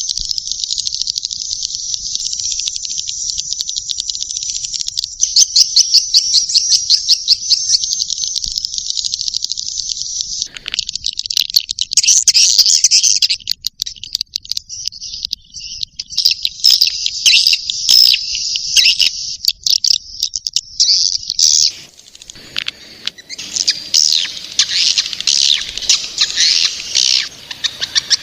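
Swiftlet call track of juvenile swiftlets: rapid trains of high, buzzy chirps. The chirp pattern shifts about ten seconds in and again near two-thirds of the way through, where it turns more spaced out and uneven.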